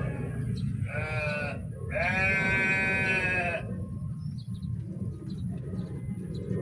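Two bleats from a sheep: a short one about a second in, then a longer one a second later. A steady low rumble runs underneath.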